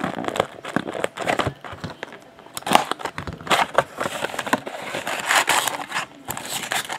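A sealed box of trading cards being torn open, its cardboard lid flap folded back and the foil packs inside handled: irregular crinkling, tearing and clicks, loudest about three seconds in and again about five and a half seconds in.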